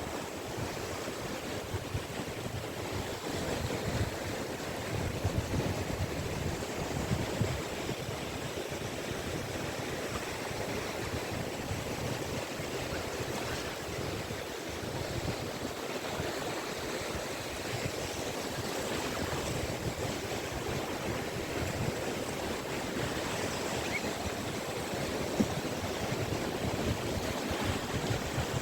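Caspian Sea surf washing steadily onto a beach, a continuous rushing of breaking waves with a low, gusty rumble of wind on the microphone. One short click about 25 seconds in.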